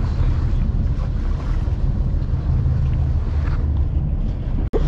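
Wind buffeting the microphone over a steady low rumble from the boat on open water, broken by a very short gap near the end.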